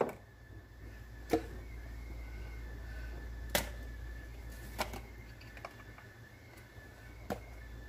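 Scattered clicks and knocks of glass spice jars and their lids being handled and set down, about six over several seconds, over a steady low hum.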